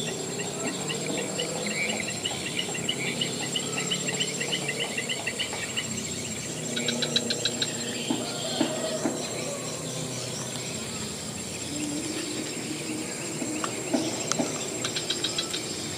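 Insects and birds in grassy vegetation: a steady high-pitched insect drone with a run of quick repeated chirps in the first few seconds, and two bursts of rapid cricket-like trills, about seven seconds in and near the end.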